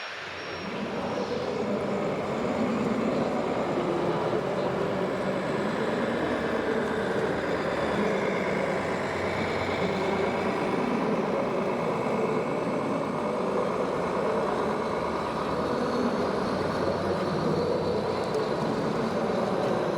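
Radio-controlled scale trucks and construction machines running steadily, their onboard sound modules playing diesel engine sounds, mixed with general hall noise.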